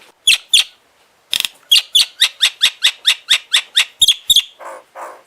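Indian ringneck parakeet screeching: two sharp calls, then a fast even run of about a dozen loud, high, downward-sweeping squawks at roughly four or five a second.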